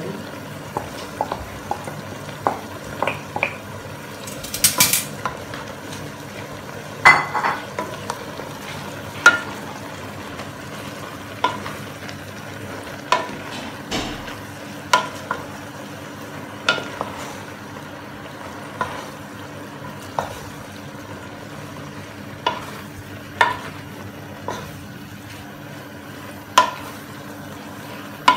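Wooden spatula stirring and tossing noodles and vegetables in a pot, with sharp knocks against the pot every second or two over a steady frying sizzle.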